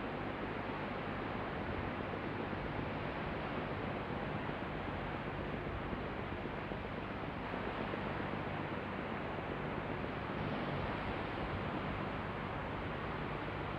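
Steady hiss of a looped background noise track replayed and re-recorded on an open microphone, with a faint low hum underneath and no distinct events.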